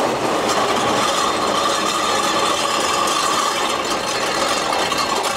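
Two corded table saws running flat out as they drive a home-made trike across concrete: a loud, steady motor whine over a dense grinding noise.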